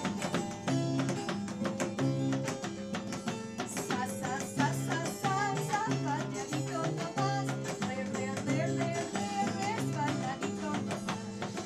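Andean harp playing a lively rhythmic tune, a repeating plucked bass pattern under a melody, with a second player knocking a beat on its wooden soundbox. A voice singing a wavering melody joins about four seconds in.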